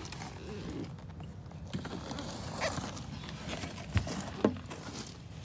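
Handling noise and rustle from a person climbing out of a car past its open door, with two sharp clicks about half a second apart a little before the end.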